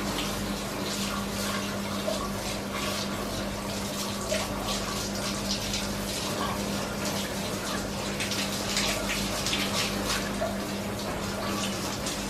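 Water from a shower hose running onto a split air conditioner's mesh filter and splashing onto a tiled floor and drain, washing the dust out of it. A faint steady hum runs underneath.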